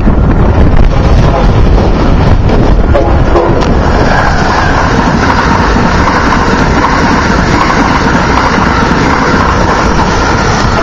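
Amtrak Acela Express high-speed trainset passing close by at speed: a loud, steady rush of air and wheel noise with deep rumble, filling out about four seconds in as the cars go by.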